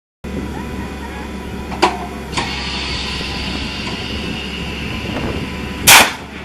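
Pumpkin launcher at work: an engine runs steadily, two sharp clicks come about two seconds in, and a short, loud blast near the end is the launcher firing.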